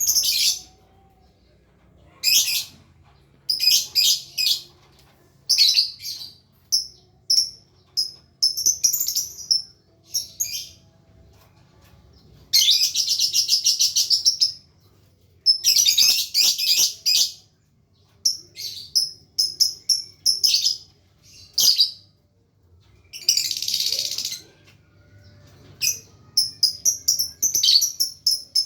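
Lovebird chirping in short, sharp high-pitched bursts, twice breaking into a longer run of rapid chatter lasting a second or two: a young bird practising the long continuous 'ngekek' chattering song.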